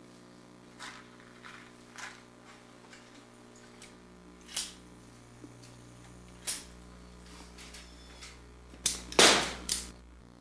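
Small handheld submachine gun firing single sharp snaps, a second or two apart at first. Near the end comes a quick cluster of louder cracks, and the loudest one rings on briefly.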